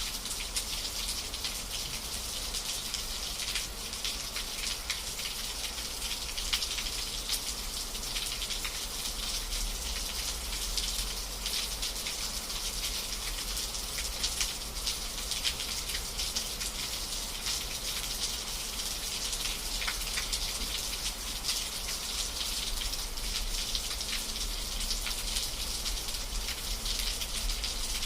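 Steady rain falling, a dense patter of drops on a surface with a hiss in the upper range, even throughout.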